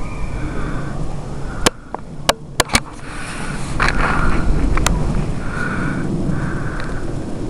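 Footsteps crunching through deep fresh snow over a steady low rumble, with a handful of sharp clicks or snaps between about two and five seconds in.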